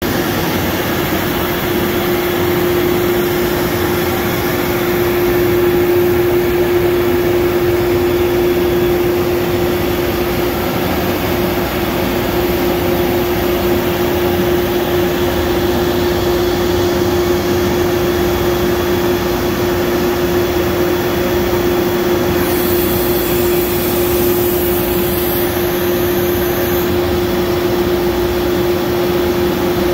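MultiCam CNC router running, with its spindle and dust-collection hose: a loud, steady rushing machine noise with one steady hum held through it. A faint high whine comes in for a few seconds a little past the middle.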